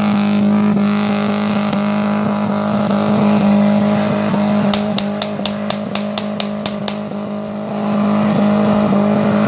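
Car engine held at steady high revs with a constant, unchanging pitch. About five seconds in comes a quick run of about eight sharp cracks.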